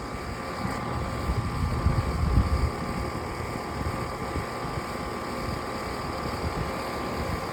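Delivery truck engine running, with a low rumble that swells about one to three seconds in over a steady mechanical hum.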